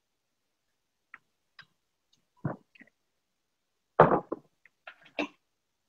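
Spatula knocking and scraping against a glass mixing bowl as chopped vegetables are tipped in and tossed: scattered light taps, a louder clack about two and a half seconds in, and the loudest clatter about four seconds in as the stirring starts.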